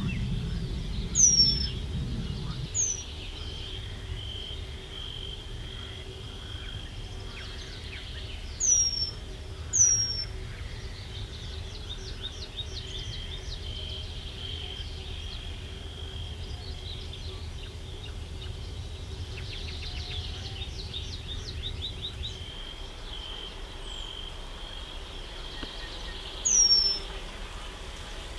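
Eurasian penduline tit calling: five thin, high, downward-slurred calls, two in the first three seconds, two more around nine to ten seconds, and one near the end.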